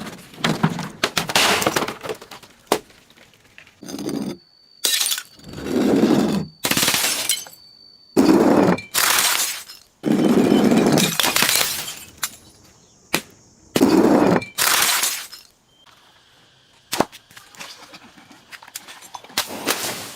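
Brittle objects, glass among them, being crushed and breaking one after another: a long series of crunches, each a second or less, with a few single sharp cracks in between.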